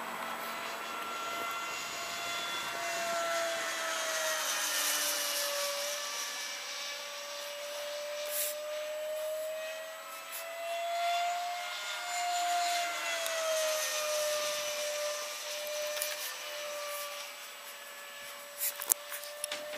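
Electric ducted fan of an RC Mirage 2000 jet, a 70 mm ten-blade Cyclone unit on a 6S battery, whining in flight. The pitch rises and falls twice as the plane passes. A few sharp clicks come near the end.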